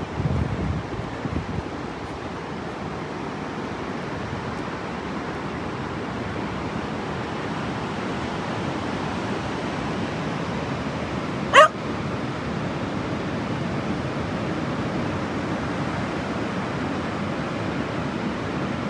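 Steady noise of surf and wind on the beach, with a single short, high yip from a dog about halfway through.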